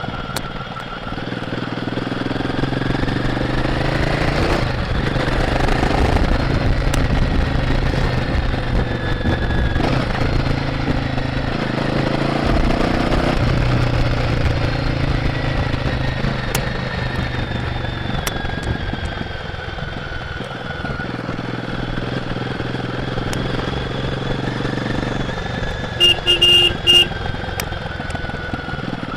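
Royal Enfield Guerrilla 450's single-cylinder engine through its stock exhaust, riding on the road. Its pitch climbs, drops sharply at each gear change and climbs again, several times over. Near the end a horn sounds in a few short bursts.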